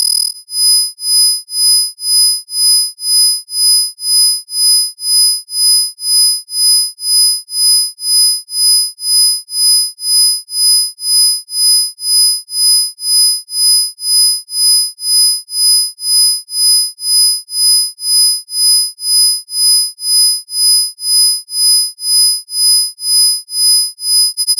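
Synthesized pure sine tones, brightest at about 5 kHz and 10 kHz with fainter tones lower down. The whole sound swells and fades in an even pulse somewhat more than once a second, as isochronic tones do.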